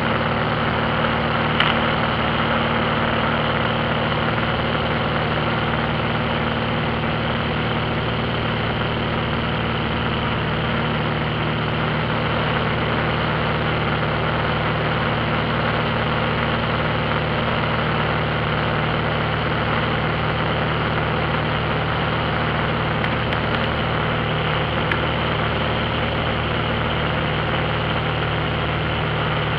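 Steady drone of a light high-wing airplane's engine and propeller, heard from inside the cabin in level flight. One brief click about a second and a half in.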